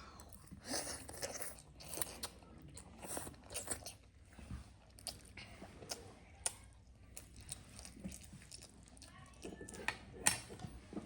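Close-up eating sounds: people biting and chewing food, with many small irregular clicks and crunches.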